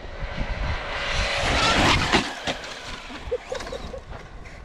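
Two RC cars, an Arrma Talion and a brushless Traxxas Slash 4x4, accelerating away at full throttle side by side: electric motor whine and tyre rush that build to their loudest about two seconds in, then fade as the cars pull away into the distance.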